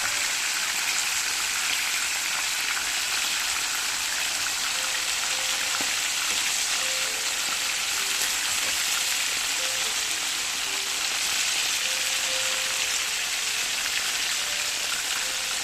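Chicken wings frying in hot oil: a steady, dense sizzle with fine crackling throughout.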